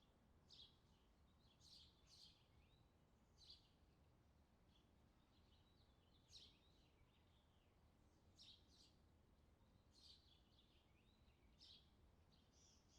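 Faint bird chirps: short, high calls repeated every second or two, with a quick run of repeated notes near the end, over a low steady hum.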